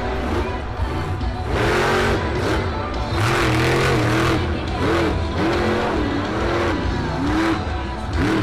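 Monster truck engine revving hard, the pitch repeatedly surging up and dropping back, with loud roaring bursts at about two seconds and three and a half seconds in. Stadium PA music and voice sound faintly underneath.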